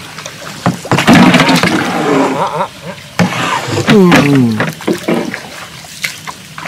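A paddle dipping and pulling through canal water with splashing, and a few sharp knocks against the small boat's hull. A man's voice sounds loudly twice over it.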